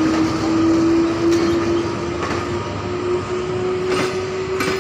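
EP1M electric locomotive pulling a passenger train away, its whine rising slowly in pitch as it gathers speed, over the rumble of coaches rolling past, with a few sharp clicks from the wheels on the rails.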